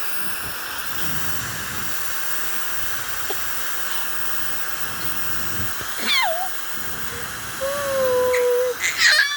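Hair dryer blowing steadily. Over it, an animal gives a falling call about six seconds in, then one long, level call and a few short chirps near the end.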